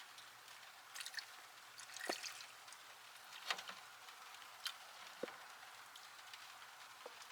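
Windshield washer fluid dripping and bubbling at the brim of a car's full reservoir: scattered single drips and small gurgles, about half a dozen, over a faint steady hiss of light rain.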